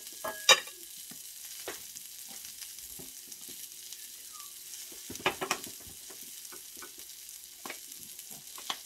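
Thin slices of beef sizzling on the hot stone top of a tabletop electric grill, a steady hiss. A few sharp clicks and knocks of utensils and bottles sound over it, the loudest about half a second in and a cluster around five seconds in.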